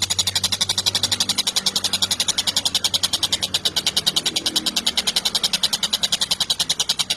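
Tengkek buto kingfisher giving a long, rapid chattering trill of high, evenly repeated notes, about a dozen a second, without a break.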